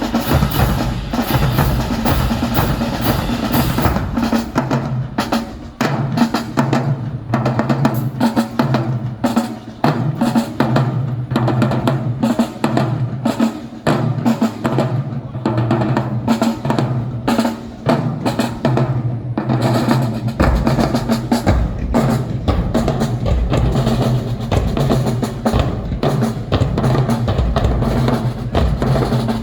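Marching band drumline playing a rapid cadence of snare drums and bass drums. The deepest drum notes thin out for a stretch and come back in strongly about twenty seconds in.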